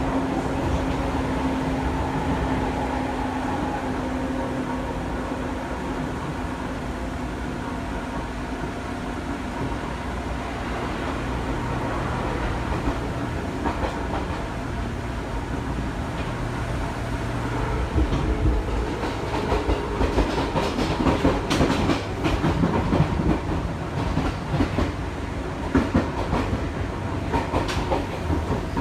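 Seibu Tamagawa Line electric train running along the track, a steady rumble with a faint hum in the first few seconds. From a little past the middle, a rapid run of sharp irregular clacks as the wheels pass over rail joints.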